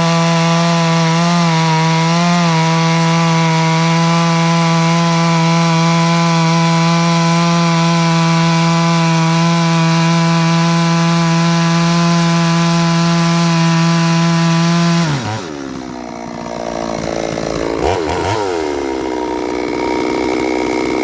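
Two-stroke chainsaw at full throttle cutting through a hard, dry blackbutt log with a brand-new full-complement semi-chisel chain, holding one steady high note. About three-quarters of the way through, the throttle is let off and the engine falls away to a lower, wavering speed, with a short rev a few seconds later.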